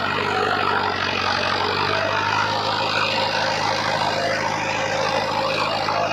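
Mahindra Arjun Novo 605 DI-MS 4x4 tractor's diesel engine running steadily while driving an 8-foot Shaktiman rotavator through the soil. The engine holds an even note under the load without labouring.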